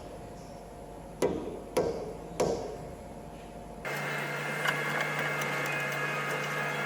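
Three sharp metal knocks, about half a second apart, each ringing briefly: a steel tool striking the front suspension to free the ball joint from the steering knuckle. A few seconds in, a steady low hum starts abruptly and runs on.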